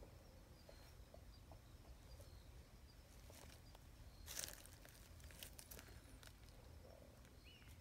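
Near silence: faint outdoor background, with one brief soft rustle about four and a half seconds in.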